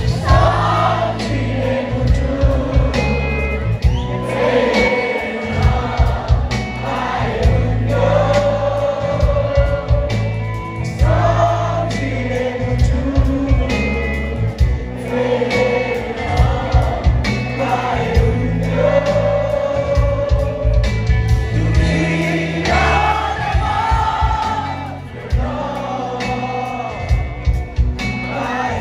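Live band music with singing: a sung melody over heavy bass and drums.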